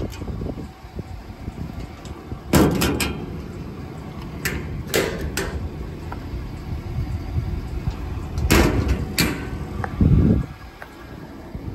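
Truck-bed toolbox compartment doors being opened and shut: a series of sharp latch clicks and door clunks, loudest about two and a half and eight and a half seconds in, with a heavier low thump near the end.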